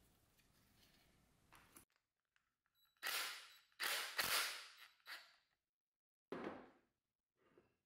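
Hand tools knocking and clacking against a small-engine carburetor body, about half a dozen sharp knocks irregularly spaced, as a float needle stuck in its seat is worked free.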